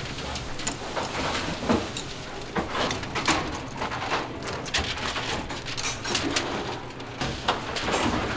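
Irregular knocks and clatter of things being handled, over a steady low hum.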